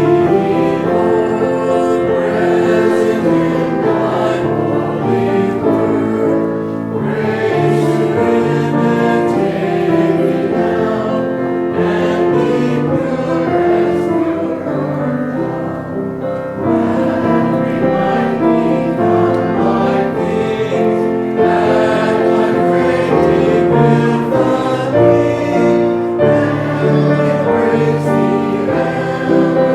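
Church hymn music: voices singing held, chord-like notes without a break.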